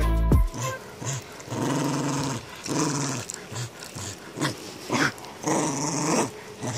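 A black-and-tan terrier growling in play as it tugs on a plush toy, in a run of short growls and a few longer ones. A brief low rumble comes at the very start.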